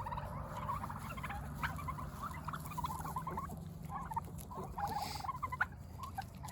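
A flock of domestic turkeys calling, with many short overlapping calls throughout.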